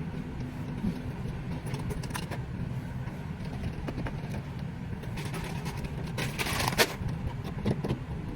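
A car's engine and road rumble heard from inside the cabin, with a few sharp clicks and a louder stretch of crackling from about five to seven seconds in.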